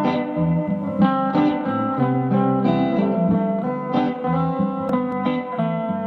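Electric guitar played through a Vox AC10C1 10-watt valve combo amp: a continuous run of picked chords and single notes.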